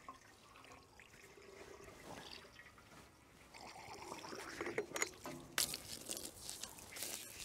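Water trickling faintly as it runs into the diesel engine's cooling system, with a few clicks and knocks of handling a little past the middle.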